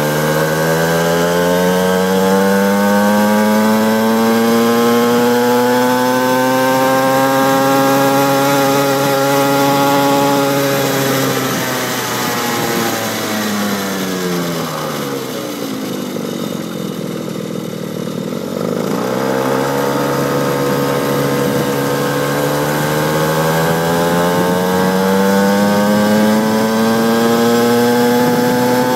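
Small 50cc pit bike engine running under way, its buzzing pitch climbing steadily for about ten seconds. It drops away to a low note around the middle as the throttle is eased off, then climbs again near the end.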